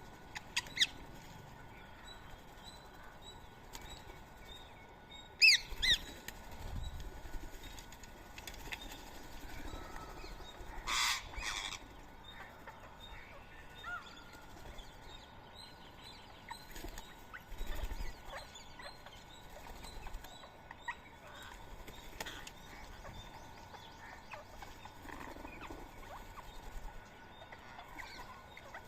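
Rose-ringed parakeets calling at a feeding spot: a few sharp squawks, the loudest falling in pitch about five seconds in, two short harsh bursts around eleven seconds, and scattered faint chirps in between.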